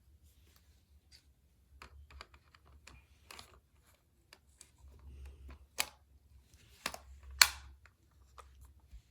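Hard plastic clicking and snapping as a part is worked loose from a Disney Store Buzz Lightyear figure: scattered light clicks with a few sharper cracks, the loudest about six and seven and a half seconds in.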